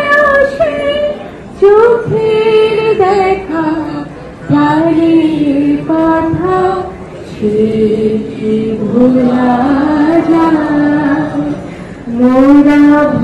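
A group of young men singing a song together, in phrases of long held notes that slide up and down, with short breaks between lines.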